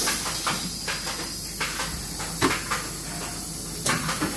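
Steady hiss of steam escaping in the pipework of a Steelco VS6/2 steam sterilizer, with a couple of sharp clicks about two and a half and four seconds in.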